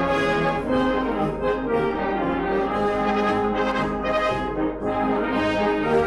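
Wind band playing, clarinets and bassoon with brass, in a slow passage of held notes and chords that change about once a second.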